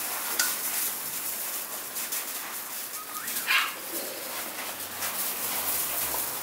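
American Bully puppies playing over a tug toy on gravel, paws and feet crunching the stones. A short yip comes about half a second in, and a rising squeal turns into a sharp bark about three and a half seconds in, the loudest sound.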